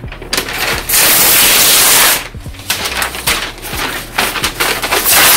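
A large sheet of paper being handled and spread out, rustling and crackling, with a loud rush lasting about a second near the start and a shorter one at the end.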